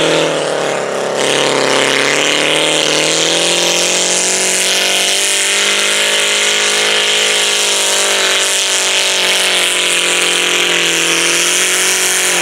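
Modified garden tractor's engine running at high revs under load as it pulls a stoneboat sled. The pitch dips briefly about a second in, then holds steady.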